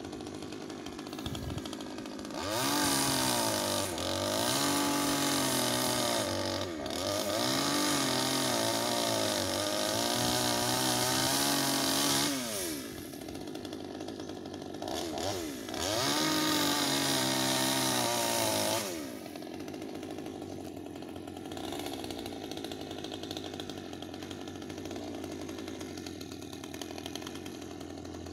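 Ogawa 12-inch two-stroke chainsaw idling, then opened to full throttle for about ten seconds, its pitch dipping and recovering again and again as it cuts into branches. It drops back to idle, gets a short blip, runs at full throttle for a few more seconds of cutting, and settles to a steady idle.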